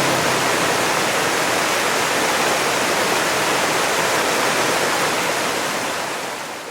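Waterfall's steady rush of falling water, fading out near the end.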